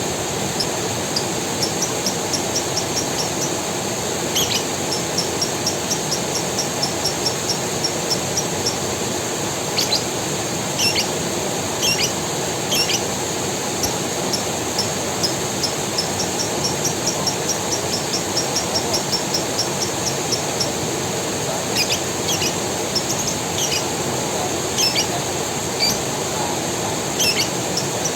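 Forest creek running steadily, under a constant high insect buzz, with birds calling over it: quick trains of short high chirps, several a second, and now and then a sharp falling call.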